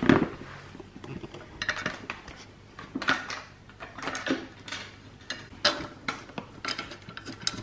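Irregular metallic clinks and short scrapes as a metal mounting plate and its bolts are handled and fitted by hand under a motorcycle's tail.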